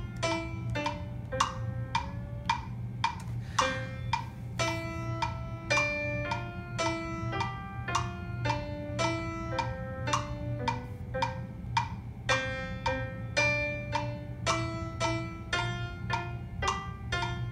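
A GarageBand song playing back from an iPad: a melody of short plucked-sounding notes, recorded from a Bluetooth MIDI keyboard, over a steady percussion beat.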